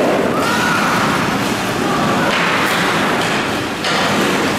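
Ice hockey play on an indoor rink: skate blades scraping the ice and sticks and puck clacking, with thuds, over a steady din.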